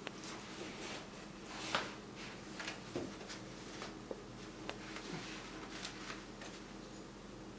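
Cat clawing and wrestling with a fabric door scratcher on a tile floor: scattered rustles, scratches and soft clicks of cloth and claws, the loudest about two seconds in, over a faint steady room hum.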